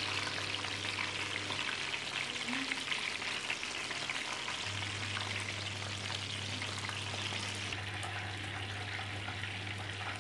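Breadcrumb-coated chicken wings deep-frying in hot oil: a steady, dense crackling sizzle.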